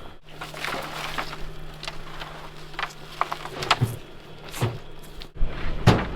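A steady low engine hum with scattered knocks and clatter over it; the hum cuts off suddenly about five seconds in.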